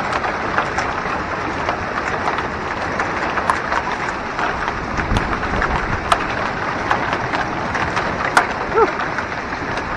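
Heavy rain mixed with hail: a steady hiss of rain with hailstones striking hard surfaces as scattered sharp ticks, a few louder ones standing out.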